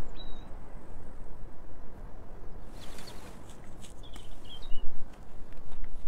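Outdoor ambience: a steady low rumble with a few short bird chirps. From about halfway there is a rush of hiss with light clicks and rustles.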